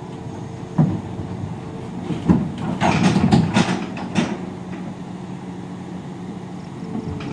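Volvo EC210 long-reach excavator's diesel engine running steadily while it is loaded onto a trailer, with loud metal clanks and knocks about a second in and a rapid run of them between about two and four seconds in.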